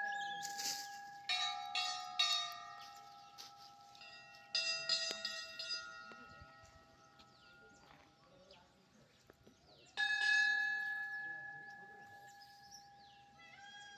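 A metal bell struck several times: three quick strikes about a second in, another near five seconds and a last one near ten seconds, each ringing out and slowly fading.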